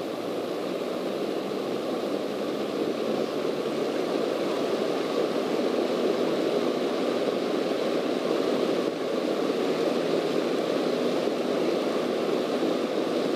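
Cessna light aircraft in flight heard from inside the cockpit: the steady drone of the piston engine and propeller mixed with airflow noise, growing slightly louder over the first few seconds.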